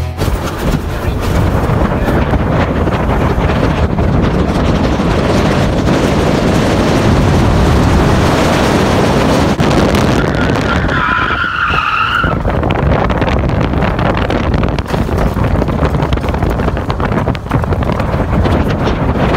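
Jaguar car driven hard over rough desert dirt: steady loud noise of engine and tyres on loose ground, with wind rushing over a microphone held out of the window. About eleven seconds in comes a brief high squeal lasting under two seconds.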